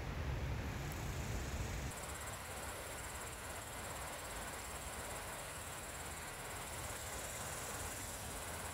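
Steady outdoor ambience with an even, high hiss. A low rumble runs through the first two seconds and cuts off suddenly.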